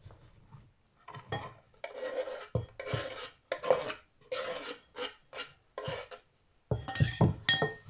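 Scraping strokes across a wooden cutting board, about ten in five seconds, as chopped green onion is cleared off it into a ceramic bowl. Near the end come a few sharp knocks with a brief ringing note.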